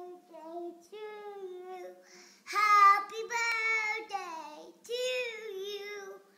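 A small child singing wordlessly in long, drawn-out notes, getting louder for a couple of seconds about halfway through.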